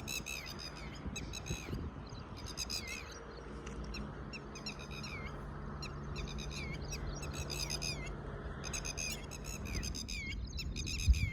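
A bird calling over and over in short runs of sharp, high notes that fall in pitch, one run every second or so. A low steady hum sits under the middle of it.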